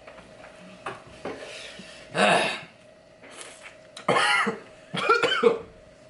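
A person coughing and clearing their throat in several short bursts over a faint steady hum.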